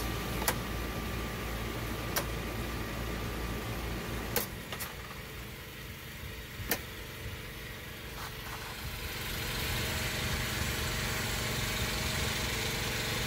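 Rocker switches on a Reliance ProTran transfer switch clicking about six times as circuits are switched over to generator power. Underneath, a Champion 8750-watt open-frame inverter generator runs steadily, and its sound grows louder about nine seconds in.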